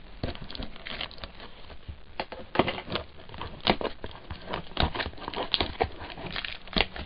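Plastic shrink wrap on a cardboard trading card box being picked at with fingernails and torn off, in irregular crinkles and crackles.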